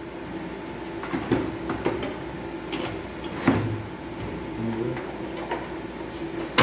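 Knocks and clicks of a Yamaha audio mixer's casing being handled and fitted back together: about six short sharp knocks at uneven intervals, over a faint steady hum.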